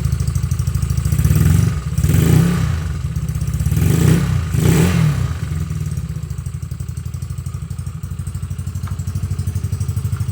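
Yamaha Fino scooter's single-cylinder four-stroke engine running through a JVT aftermarket exhaust pipe, idling with a steady pulsing exhaust beat. It is revved in a few short blips between about one and five seconds in, then drops back to idle.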